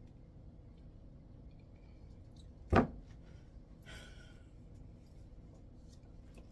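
A single sharp knock about three seconds in, as a rubber spatula is set down into a mixing bowl, followed by a brief rustle.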